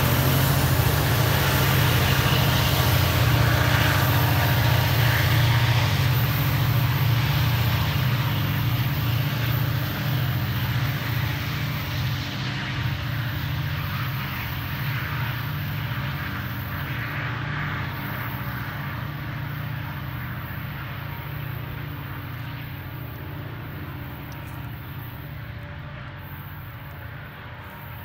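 Diesel locomotives, including Illinois Central 6250, running past with a deep engine rumble that fades steadily as they pull away down the track.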